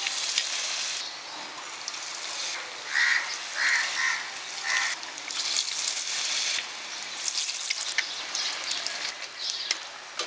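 Batter-coated boiled egg pieces deep-frying in hot oil in a kadhai: a steady sizzle with crackling pops. About three to five seconds in, four short high calls sound above the sizzle.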